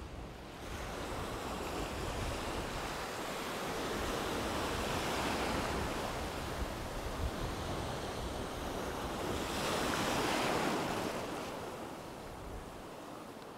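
Sea waves breaking and washing close by in choppy water, swelling louder twice, with wind rumbling on the microphone.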